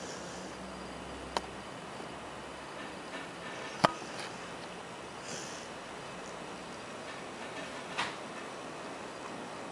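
A sleeping pet's soft snoring breaths and snuffles, faint against a steady hiss, with three sharp clicks, the loudest about four seconds in.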